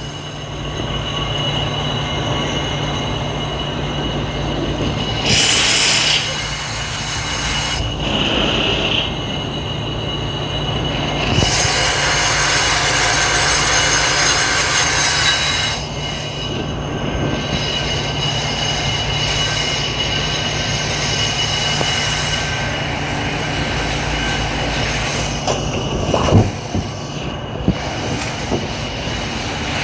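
On-car brake lathe resurfacing a 2015 Nissan Sentra's rear brake rotor to cut out its warpage: a steady motor hum with a high metallic whine from the bit cutting the rotor face. A harsher scraping hiss swells twice, around six seconds in and again from about twelve to sixteen seconds, and there is a short knock near the end.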